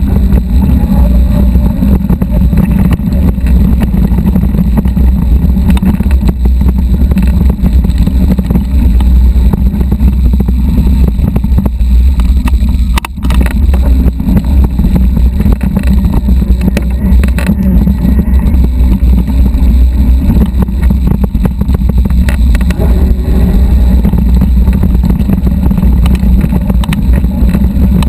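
Loud, steady low rumble and buffeting from a handlebar-mounted camera on a mountain bike riding over a rocky dirt trail, with a brief drop about halfway through.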